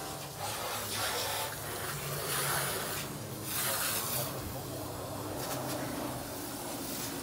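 Water jetting from a garden hose spray nozzle onto a car's body, hissing in uneven surges as the spray is swept over the panels.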